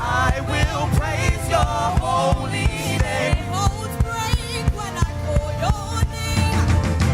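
Gospel worship music: a live band with a steady drum beat, and wordless vocal runs over it.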